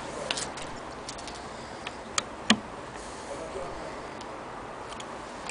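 Scattered light clicks and ticks from an antique Willcox & Gibbs chain-stitch sewing machine being worked, at an irregular pace. Two sharper clicks come a little past two seconds in.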